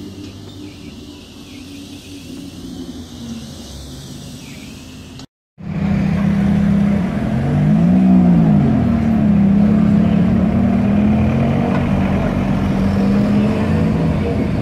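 Ferrari F430 Spider's V8 engine running at low speed in street traffic, blipping its revs up and back down once about eight seconds in, then pulling away steadily. Before that, a quieter low steady hum.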